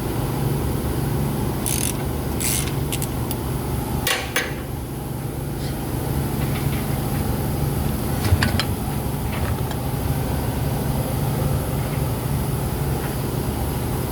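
A steady low hum with a few short clinks and scrapes of a wrench working under the car, the loudest about eight seconds in.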